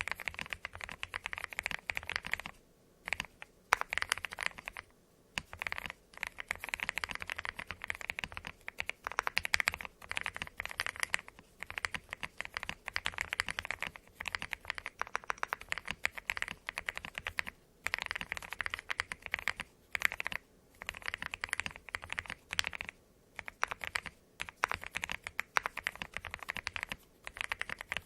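Typing on a KBDFans Tiger Lite mechanical keyboard with lubed Momoka Frog linear switches, dye-sub Cherry profile keycaps and a tape mod: a fast, deep-sounding clatter of keystrokes in runs, broken by short pauses.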